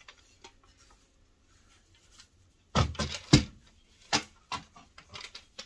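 Knocks, thumps and clicks of a cross-stitch scroll frame on a lap stand being handled and adjusted. A cluster of sharp knocks comes about three seconds in, followed by several lighter clicks and taps.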